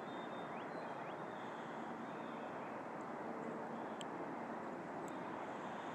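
Steady distant hum of car traffic and jet aircraft, an even wash of background noise with no single event standing out.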